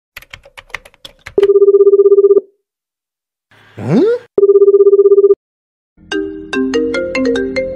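Meme sound-effect edit: a quick run of about a dozen clicks, then a pulsing, buzzing telephone ring tone for about a second. A rising "huh?" follows, then the ring tone again, and about six seconds in a marimba ringtone melody starts.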